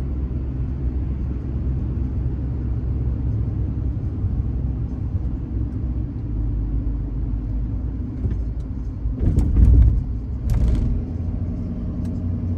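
Steady low engine and road rumble of a pickup truck hauling a car trailer, heard while driving, with two brief louder noises about nine and ten and a half seconds in.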